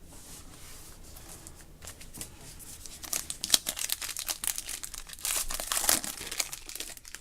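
A trading card pack wrapper being torn open and crinkled. It starts quiet and turns to dense crackling from about two seconds in.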